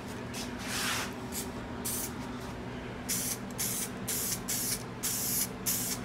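Aerosol can of flexible vinyl and fabric coating sprayed in short hissing bursts, roughly one or two a second, laying down light coats so the paint doesn't run.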